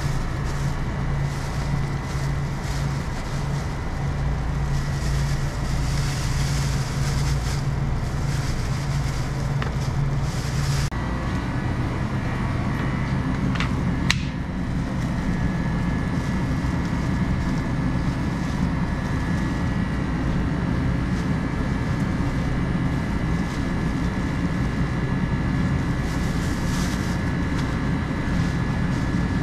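Steady low rumble of a motor vehicle with a faint hum over it, and one sharp click about fourteen seconds in.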